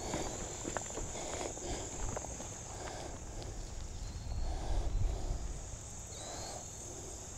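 Insects buzzing in a steady high drone over a low, uneven rumble of wind on the microphone, with a few faint clicks and scuffs.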